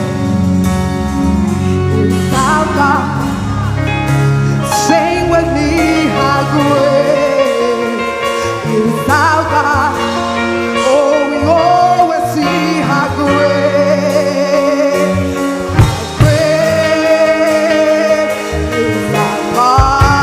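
Live gospel worship music: a lead voice sings sustained, gliding lines over a band's held chords.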